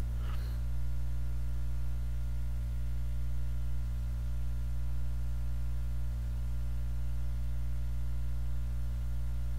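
Steady low electrical hum with a buzz of overtones and a faint hiss underneath, unchanging throughout.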